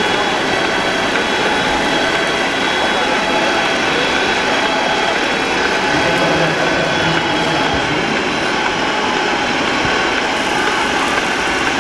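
Steady mechanical running noise at an even level: a wide hiss with a few steady tones in it.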